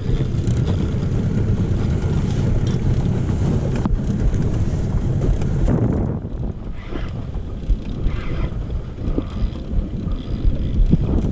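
Wind rumbling on the microphone, easing off about six seconds in.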